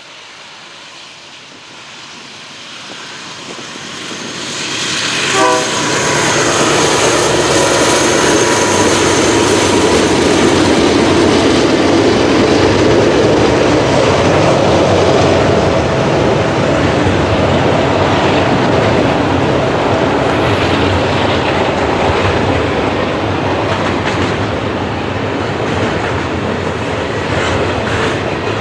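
Freight train led by a pair of CN GE C44-9W diesel locomotives approaching, getting steadily louder and passing about five seconds in. Then the steady rumble and wheel clatter of double-stack intermodal cars rolling past.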